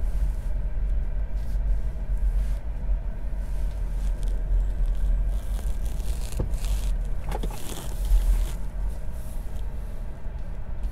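Low steady rumble of tyre and road noise heard inside the cabin of a Tesla Model 3 rolling slowly across a parking lot, with two brief faint clicks about six and seven seconds in.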